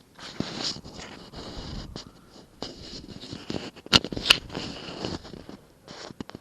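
Irregular rustling and scraping, like gear or clothing being handled close to the microphone, with two sharp clicks a fraction of a second apart about four seconds in.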